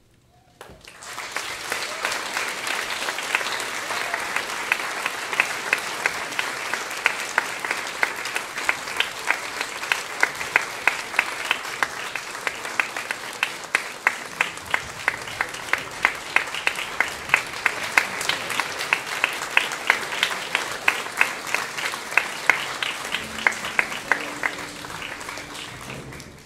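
An audience applauding. The applause breaks out about a second in after a brief hush, with sharp claps standing out about twice a second through the middle, and dies down near the end.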